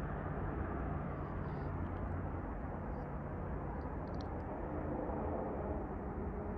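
CSX intermodal freight train rolling through a grade crossing, a steady, even rumble.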